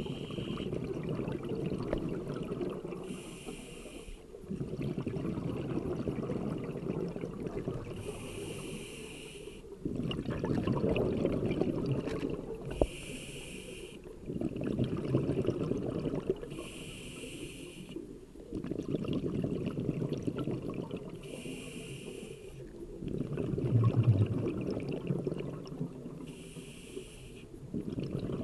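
A scuba diver breathing through a regulator underwater: about six breaths, each a short hiss of the demand valve on the inhale, then a longer rumble of exhaled bubbles.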